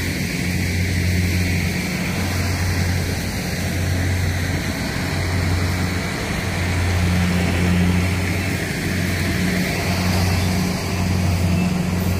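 Pickup truck engine running steadily under load as it tows a flat trailer, a continuous low drone.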